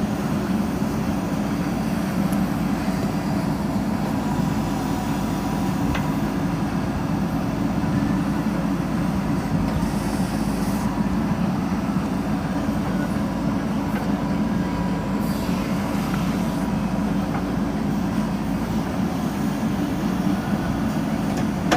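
Diesel engine of a JCB 3DX backhoe loader running steadily under working load.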